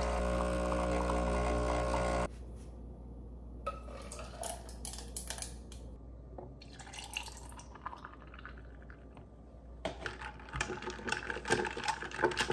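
Home espresso machine's pump humming steadily as it finishes a double shot, cutting off about two seconds in. Then quieter handling and milk poured over ice and espresso in a glass, and from about ten seconds in, ice clinking rapidly against the glass as the iced latte is stirred.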